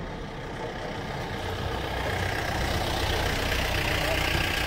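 A motor vehicle's engine running steadily, growing gradually louder.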